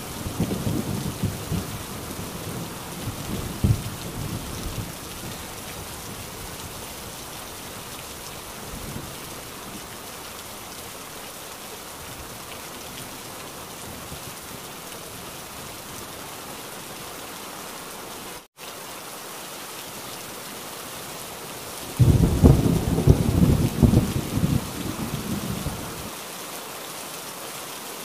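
Heavy steady rain with thunder. A low rumble dies away over the first few seconds. After a split-second dropout about two-thirds through, a loud clap of thunder rumbles for about four seconds near the end.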